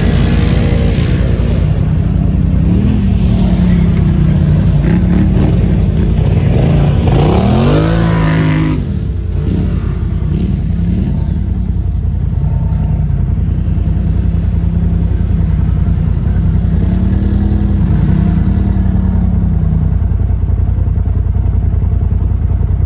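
Off-road ATV and side-by-side engines revving up and down again and again, their pitch rising and falling as the machines spin and climb on loose dirt. The sound is a little quieter after about nine seconds.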